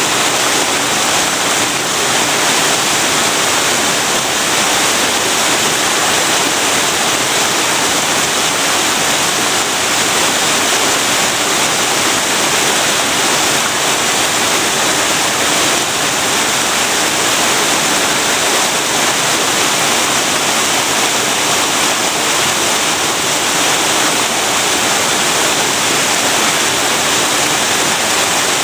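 Waterfall: water pouring down and splashing in a loud, steady rush that stays even throughout.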